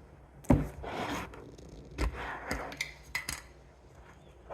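Kitchen handling noises: a knock about half a second in, then short scraping rustles and a few sharp clicks, as containers are handled to get salt ready for a jar of cucumber brine.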